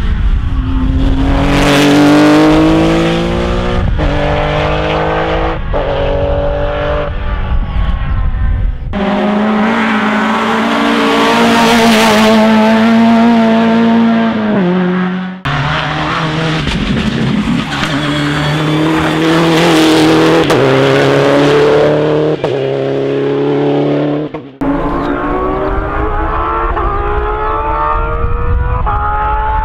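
Rally car engines at full throttle, the pitch climbing and dropping back again and again as the drivers shift up through the gears. Several separate cars follow one another, each cut in abruptly.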